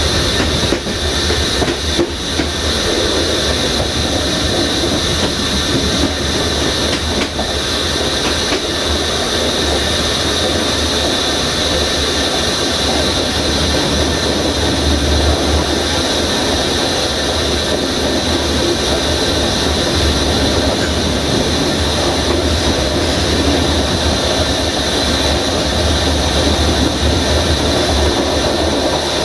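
Train running, a steady continuous rumble and hiss of rolling stock with a few faint clicks in the first seconds.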